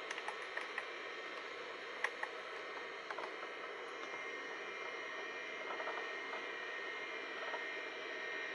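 Steady hum and hiss of a running 286 PC, its cooling fan and Seagate ST-251 MFM hard drive spinning. There are a few sharp key clicks in the first two and a half seconds as a command is entered.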